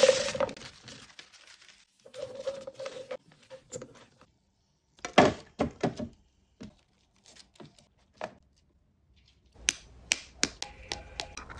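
Fried sweet potato slices dropped into a frying pan of hot oil and melted sugar, with a brief sizzle and clatter that fades within about half a second. Scattered sharp taps and clicks follow as the sugar-coated pieces are handled and set down on parchment paper, with a second cluster near the end.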